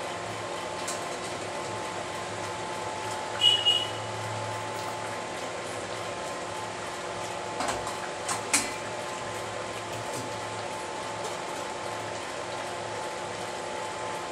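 Chicken curry simmering in an open pan on a gas stove: a steady bubbling hiss throughout. A few sharp metal clinks of the steel plate lid and utensils come about three and a half seconds in, one ringing briefly, and a few more around eight seconds in.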